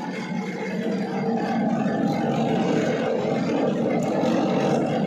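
Belt-driven groundnut picking machine running steadily, its electric motor and pulleys turning the picking drum with a continuous mechanical noise.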